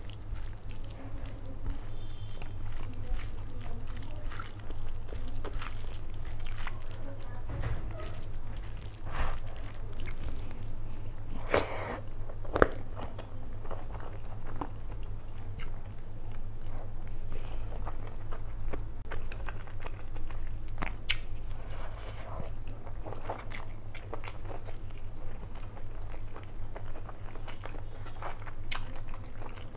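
Close-miked eating sounds: chewing, lip smacks and fingers squishing and mixing rice as mutton biryani is eaten by hand. Short wet clicks come all through, a louder cluster of them about twelve seconds in, over a steady low hum.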